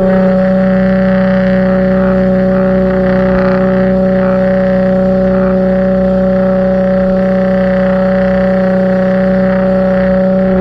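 Pressure washer running with a steady droning hum that holds one unchanging pitch throughout.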